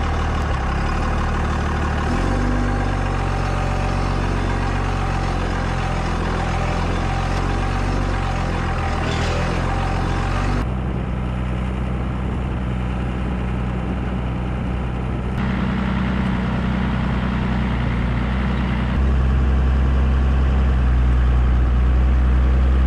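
Diesel pickup truck's engine and drivetrain running steadily as it drives in four-wheel drive over sand, heard up close from the truck's underbody and wheel. The tone of the engine changes abruptly three times.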